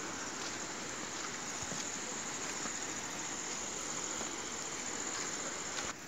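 Steady high-pitched insect chorus over an even outdoor hiss. It holds constant, then drops in level just before the end.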